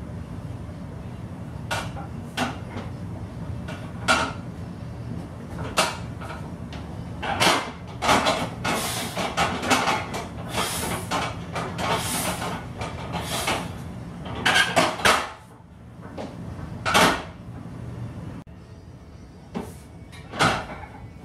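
Knocks and clunks from the steel frame and iron weight plates of a homemade vertical leg press as the loaded platform is pushed up and set back down, with a cluster of harsher clanks in the middle, over a steady low hum.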